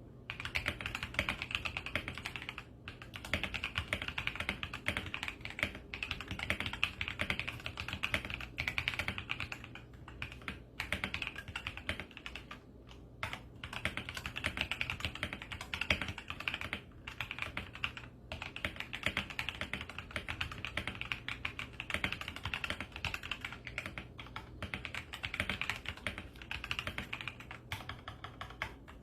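Continuous typing on a Royal Kludge RK84 mechanical keyboard modded with tempest tape, PE foam and clipped stabilizers: a dense run of key clacks with a few brief pauses.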